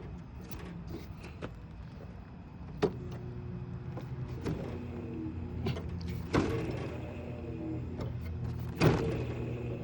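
Scattered knocks and clunks of metal parts being handled on a window air conditioner's chassis, about five in all, the loudest near the end, over a low steady hum.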